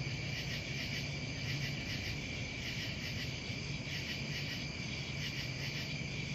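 Steady chorus of insects, crickets by the sound of it, a continuous high pulsing trill, over a low steady hum.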